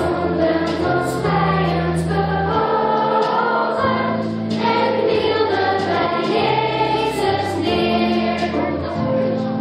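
Children's choir singing over an instrumental backing, amplified through microphones. The held bass notes change about once a second.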